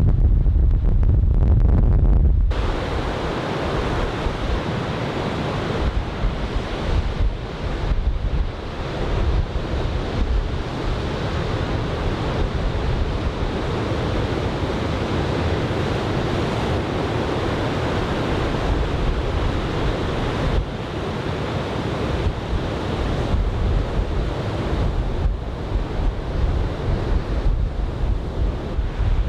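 Wind buffeting the microphone as a heavy low rumble. About two seconds in it changes abruptly to a steady wash of breaking surf from a typhoon swell, with the strong offshore wind still gusting on the microphone.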